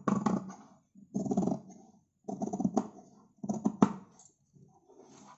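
Large tailor's shears cutting down through layered fabric in about five strokes, roughly one a second, each a short rasp with a sharp click as the blades close.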